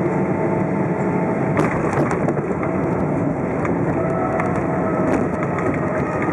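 Boeing 777-300ER's GE90 jet engines running, a steady roar with a faint high whine, broken by a few sharp crackles about a second and a half to two and a half seconds in.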